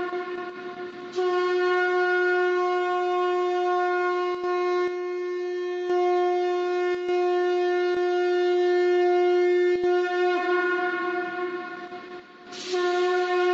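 Conch shell trumpet blown in long, steady blasts on one pitch. The blast breaks off briefly about a second in, and near the end the note sags and weakens before a fresh blast starts.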